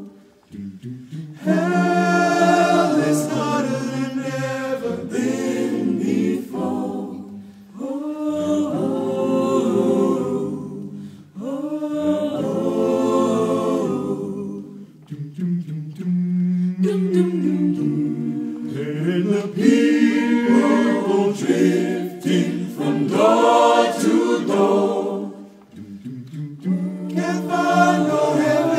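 Mixed men's and women's a cappella choir singing a slow blues arrangement, with no instruments. The voices move in sustained phrases of a few seconds each, with brief breaks between them.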